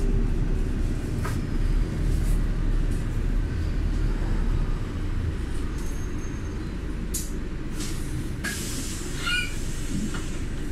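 Road vehicle running along, a steady low rumble heard from inside, with a few light clicks and a brief high squeal about nine seconds in.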